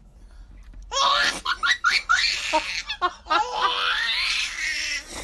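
A baby laughing in repeated bursts, starting about a second in.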